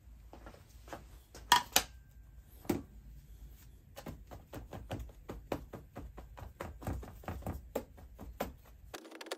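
A plastic casting pattern set down into a steel moulding flask on a metal bench, giving two sharp clacks about a second and a half in and another knock soon after. Then a run of soft taps and pats, a few each second, as the pattern is dusted with talc to release it from the sand mould.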